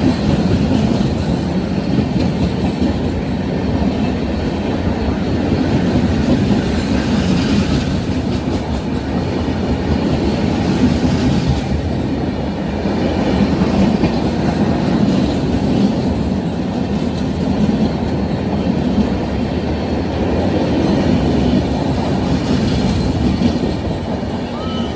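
Train running on the rails: a steady, continuous rumble that rises and falls slightly in loudness.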